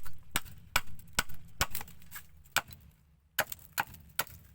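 Small hatchet blade of a Bellota alcotana (picoleta) chopping into wood, a quick, uneven series of sharp blows about two or three a second.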